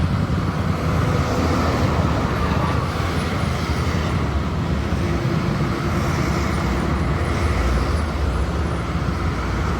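Steady highway traffic noise: vehicles running past at speed, a dense rumble of engines and tyres.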